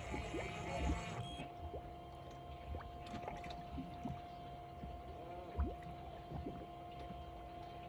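Fishing boat on calm water: a steady low hum with a constant whine running through it, water sloshing against the hull, and a few small knocks, one louder about five and a half seconds in.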